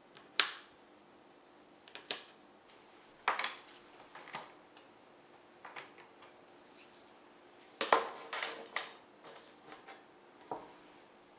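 Scattered clicks, taps and light rustling from binoculars and their packaging being handled, with the sharpest knocks about half a second in and again near eight seconds in.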